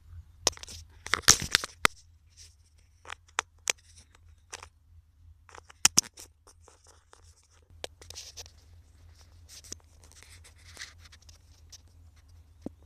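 Footsteps on leaf-strewn ground and scraping, rustling handling noise, a string of sharp clicks and scrapes that is loudest about a second in and again around six seconds in, over a steady low rumble.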